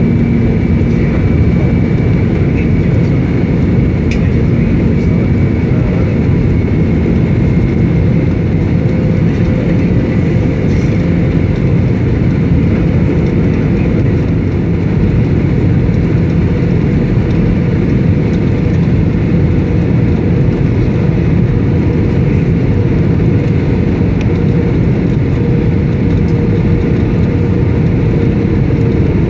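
Airliner jet engine noise: a steady, loud rumble with a faint high whine running through it.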